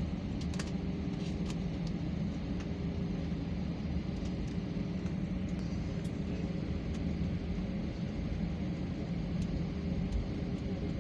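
Airliner engines running, heard as a steady low rumble with a faint steady hum that does not rise or fall.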